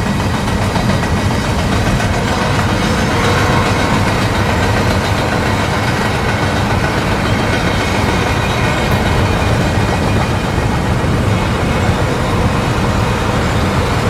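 Moving freight train, a steady low rumble with no single event standing out.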